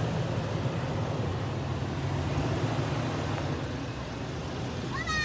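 Toyota Sequoia's V8 engine running with a steady low drone.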